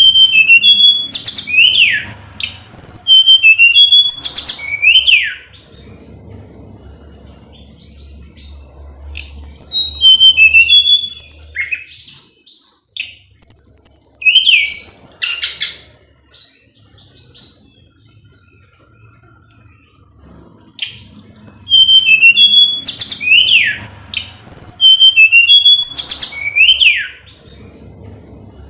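A tledekan gunung singing in loud bouts of a few seconds each: clear high whistled notes and quick downward-sweeping phrases, repeated with pauses of several seconds between bouts. A faint low hum runs underneath.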